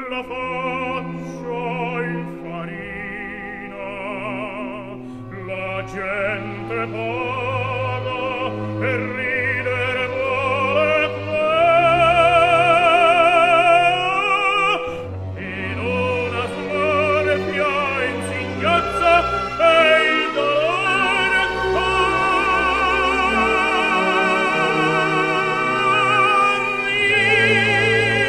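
Background music: operatic singing with strong vibrato over a sustained accompaniment.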